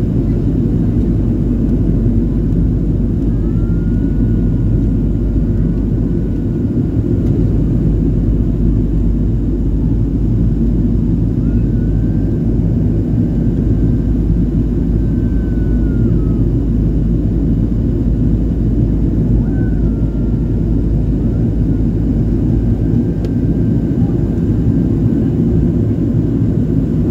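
Steady cabin noise inside a Boeing 737-800 during its descent: a deep, even rumble of the CFM56 turbofan engines and rushing airflow past the fuselage, loud and unbroken.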